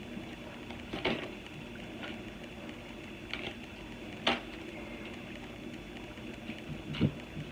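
A Crystal Visions tarot deck being shuffled by hand: a few short sharp taps and snaps of the cards, the loudest about one, four and seven seconds in, over a faint steady background hum.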